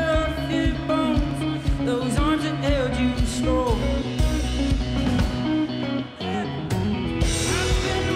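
Live band music: a man singing over guitar and bass with a steady beat, the music dipping briefly about six seconds in.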